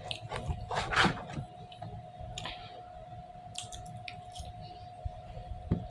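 Scattered small clicks and rustles of things being handled close by, over a faint steady hum.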